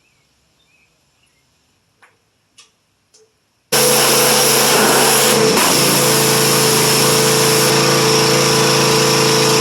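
A few faint clicks, then a small motor running loud and steady for about six seconds, cutting in and out abruptly.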